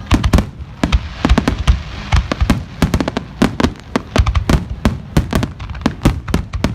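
A fireworks display: a rapid, irregular barrage of sharp bangs and crackles from bursting shells, several a second, over a continuous low rumble.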